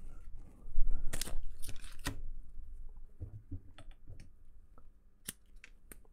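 Adhesive tape being pulled off a roll: a rasping peel starting about a second in and lasting roughly a second and a half, then light clicks and ticks of handling.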